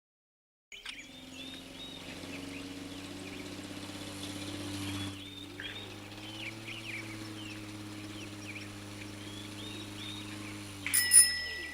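Small birds chirping repeatedly over a steady low pitched hum, starting about a second in, then a sudden loud sound with a ringing tone near the end.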